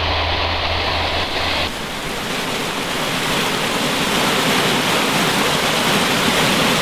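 Steady rushing water, like a river or waterfall. It comes in after a train running sound with a low hum cuts off suddenly about a second and a half in.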